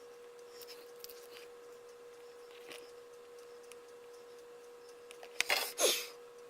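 A few faint clicks and taps over a steady faint tone. Near the end comes a brief rustling clatter, with a short high whine that falls in pitch, like a dog's whimper.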